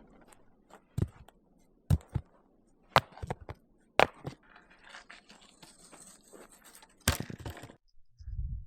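Gear being handled while a shelter is set up. Sharp knocks come about once a second for four strokes, then a few seconds of rustling with another sharp knock, and a dull low thump near the end.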